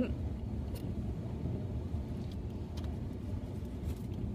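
Steady low rumble inside a car cabin, with a few faint clicks.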